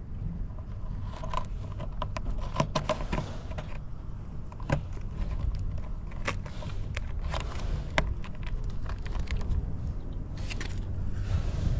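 Honda Motocompo's small single-cylinder two-stroke engine running low and steady, with scattered sharp clicks and knocks over it.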